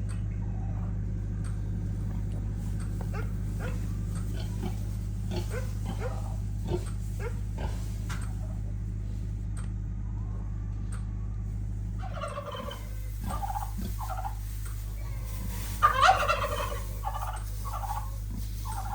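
Turkeys gobbling: short scattered calls at first, then a run of loud gobbles in the second half, loudest about three-quarters of the way in, over a steady low hum.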